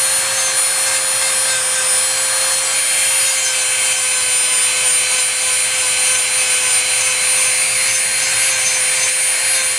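Dremel rotary tool running at steady speed, its bit grinding old paint off a doll's arm: a constant whine over a rough, scraping hiss.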